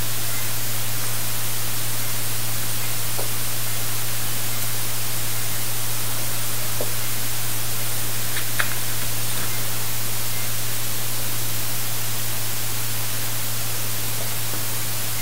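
Steady, fairly loud hiss with a low hum beneath it and a few faint clicks.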